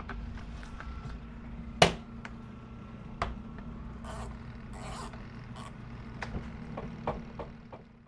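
Spin-dryer basket of an HM107 twin-tub mini washing machine running at speed, spinning out a t-shirt, with a steady motor hum. Scattered clicks and rattles sit over the hum, the loudest a sharp knock about two seconds in.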